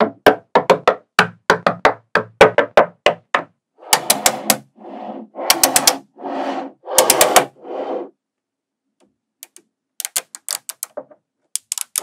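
Small magnetic balls clicking and snapping together as blocks of them are handled and pressed into place: a fast run of sharp clicks, then a few short rattling scrapes, a brief pause and more quick clicks near the end.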